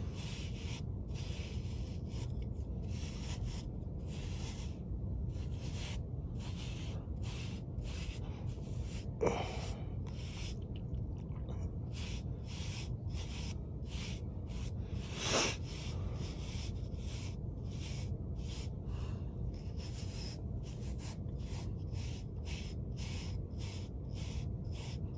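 Small bristle hair brush stroked repeatedly through short hair and beard, a scratchy brushing at a steady rhythm of about two strokes a second. Twice, about 9 and 15 seconds in, a brief louder sound stands out.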